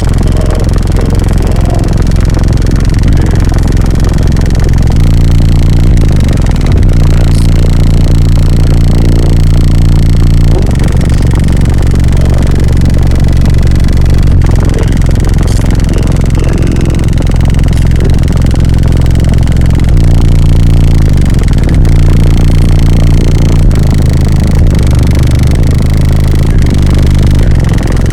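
A car audio system of sixteen 12-inch subwoofers playing a bass demo at extreme volume. Deep, sustained bass notes shift in pitch every few seconds, with buzzing and rattling noise riding over them.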